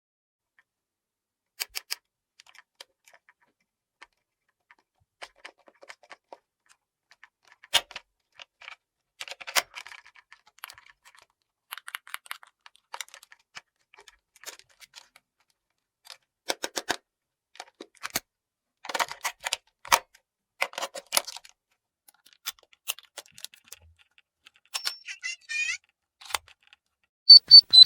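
Small plastic toy pieces from a play set being handled, clicking and tapping against each other in irregular little clusters with pauses between. A brief high-pitched tone sounds near the end.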